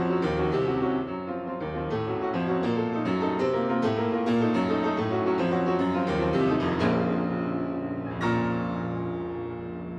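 Instrumental keyboard music, piano-like, playing a fast run of notes with a strongly struck chord about eight seconds in.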